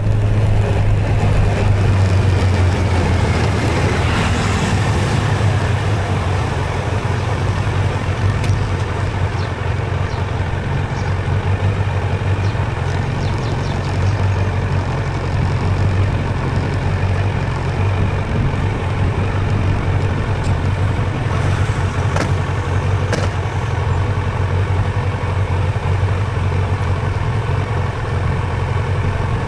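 Touring motorcycle being ridden on a test ride after repair: its engine runs with a steady low hum under road and wind noise, at an even pace. Two short sharp ticks come a little past two-thirds of the way through.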